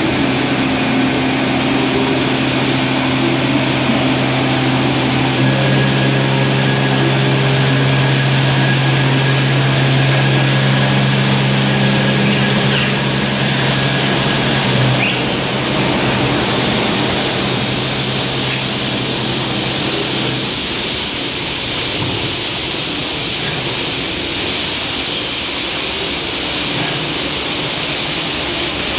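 Tunnel car wash machinery running: a steady motor or pump hum under the spinning brushes, then from about two-thirds of the way through a loud hiss of water jets spraying the car takes over as the hum drops away.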